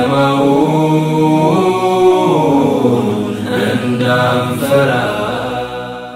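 Unaccompanied man's voice chanting a melodic Islamic recitation, with long held notes and ornamented turns, fading out at the end.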